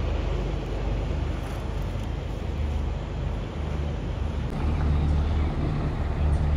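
Low, steady rumble and road noise of a moving motor vehicle, growing louder a little past halfway.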